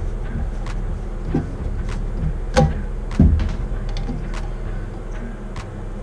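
Scattered light clicks and knocks of toilet tank parts being handled and fitted against the porcelain tank, the two loudest knocks close together about halfway through, over a steady low rumble.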